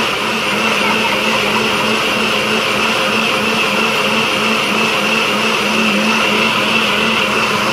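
Personal countertop blender running steadily with its cup pressed down, blending a pumpkin-pulp, milk and water mixture, a steady motor hum with a high whine.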